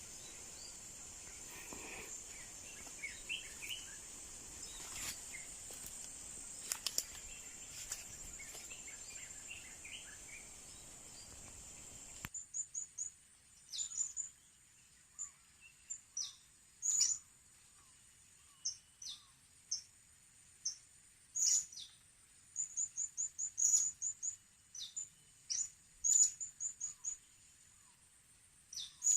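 Blue-crowned hanging parrots (serindit) calling in short, sharp, high-pitched chirps, repeated in irregular runs. For the first twelve seconds they are soft under a steady high drone. After a sudden change about halfway through, they come louder and closer against a quiet background.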